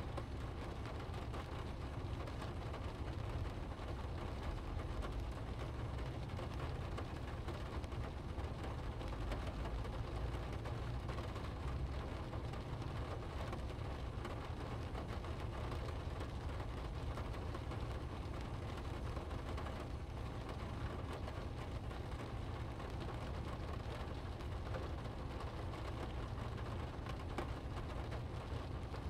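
Car driving in rain, heard from inside the cabin: a steady low road and engine rumble under an even hiss of rain on the windscreen and tyres on the wet road.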